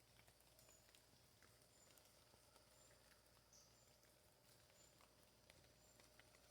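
Near silence: faint outdoor background with scattered small clicks and a faint high-pitched chirp repeating about once a second.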